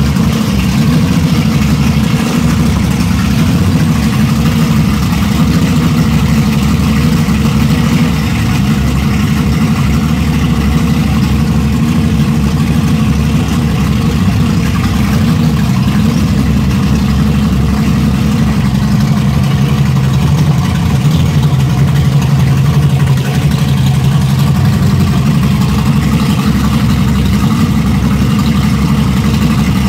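Twin Mercury 300X outboards with 3.2-litre V6 two-stroke powerheads running steadily in gear, their propellers churning the water of a test tank.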